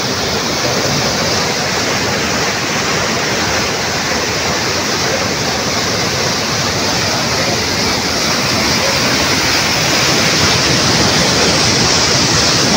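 Loud, steady rushing of muddy floodwater churning in white rapids as it pours out of a concrete culvert outlet, growing a little louder after about ten seconds.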